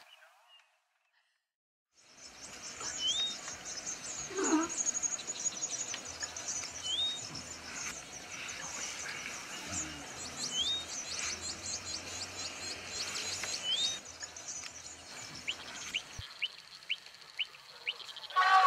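Birds chirping: dense, fast high chirping with a clear rising whistle call repeated four times, about every four seconds, over a faint low hum. It starts about two seconds in and cuts off shortly before the end.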